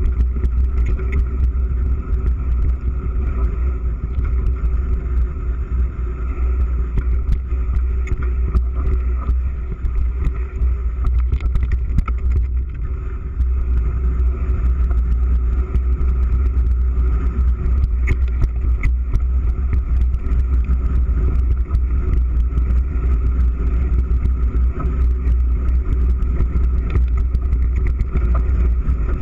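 Mountain bike riding fast over grass and dirt trail, heard from a GoPro in its waterproof housing: a steady low rumble of wind and trail vibration, with many scattered clicks and rattles from the bike.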